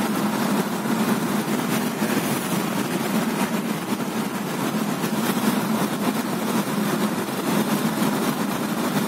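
Steady road noise heard inside a car's cabin while it drives along a highway: an even hum of tyres and engine with no changes or distinct events.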